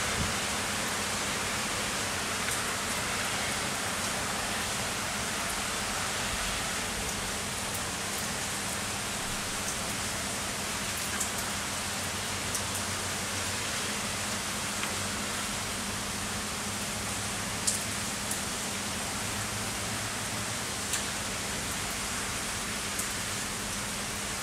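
Heavy rain falling steadily, with a few sharp taps of drops striking a nearby surface scattered through it. A faint steady low hum sits underneath.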